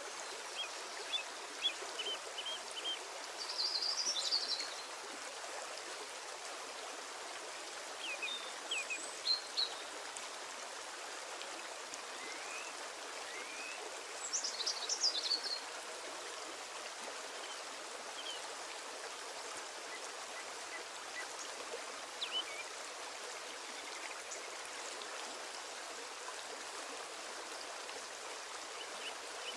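A steady rushing hiss, like running water, with scattered short high chirps in small clusters several times, a few of them rising in pitch.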